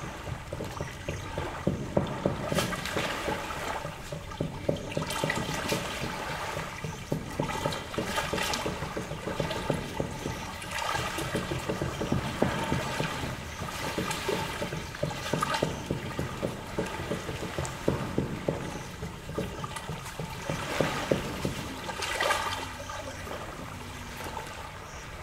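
Small lake waves lapping and splashing against a muddy shore, a louder wash every two to three seconds over a constant trickling of water.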